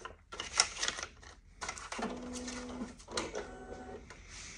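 Paper originals rustling and clicking as they are set into the document feeder of a Canon imageRUNNER copier. This is followed by a short, steady whir from the copier's mechanism about two seconds in, and a second, higher whir about a second later.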